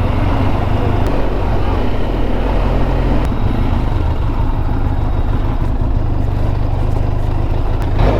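Motorcycle running at low speed in traffic: a steady engine and road-noise drone.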